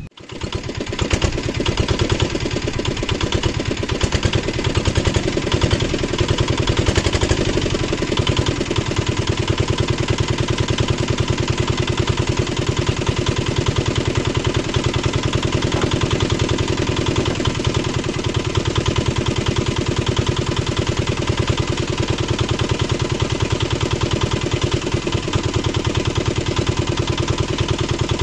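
Boat engine running steadily with a fast, even beat that comes up within the first second.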